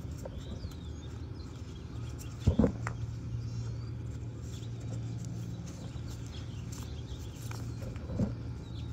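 Gloved hands handling a PVC compression coupling and its rubber ring on a 3/4-inch PVC pipe: a few sharp plastic knocks and taps, the loudest two close together about two and a half seconds in, over a steady low hum.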